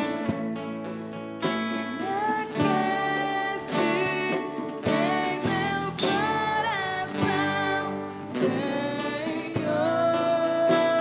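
Live acoustic worship music: an acoustic guitar playing under a singing voice that holds and slides between notes.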